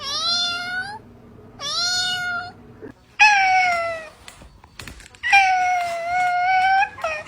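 A domestic cat meowing four times in long, drawn-out meows, the fourth the longest, with a short meow near the end.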